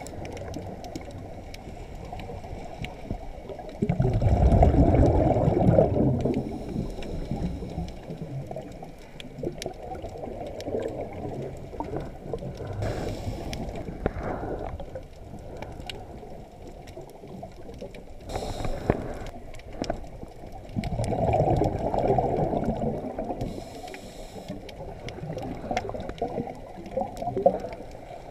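Scuba diver breathing through a regulator, heard muffled from inside an underwater camera housing. Two loud bubbling rumbles of exhaled air, about four and twenty-one seconds in, come between shorter hissing inhalations over a steady underwater rumble.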